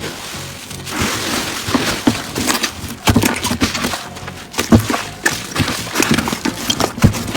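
Slime being handled and squished: a run of irregular wet clicks and pops over a soft crackling hiss.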